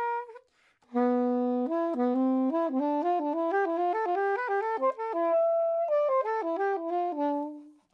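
Soprano saxophone played unaccompanied: after a brief pause about a second in, a run of quick connected notes, with one longer held note past the middle, ending on a low held note that fades out.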